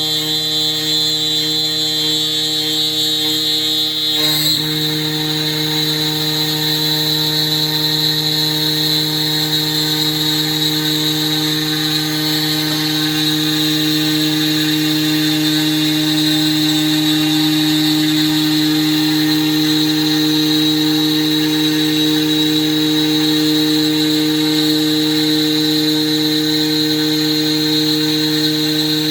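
CNC router spindle running steadily with a high whine over a low hum as it cuts, with a brief click about four seconds in after which the hum shifts slightly.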